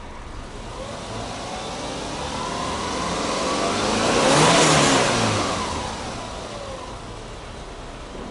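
A vehicle passing by, swelling to a peak about four and a half seconds in and then fading away, over the steady idle of a Subaru Impreza 20S's flat-four engine.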